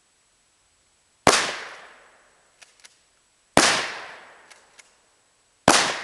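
Three 12-gauge shotgun shots about two seconds apart, each sharp crack trailing off in an echo of about a second, with a few faint clicks between the shots.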